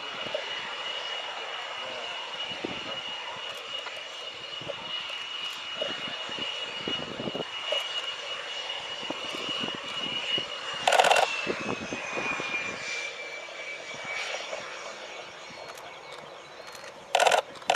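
Saab JAS 39 Gripen's single Volvo RM12 turbofan whining steadily at taxi power, its high tone dropping to a lower pitch about eleven seconds in as the power comes back. Two brief loud rushes of noise break in, one around the pitch drop and one near the end.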